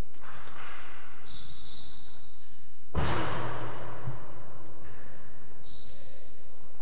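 Court-shoe squeaks on the floor of a rackets court, one about a second in and another near the end. About three seconds in comes a single sharp smack of the hard rackets ball, which echoes off the walls.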